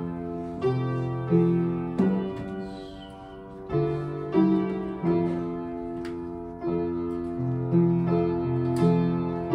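Piano playing a slow tune in chords, each struck note fading out before the next is played.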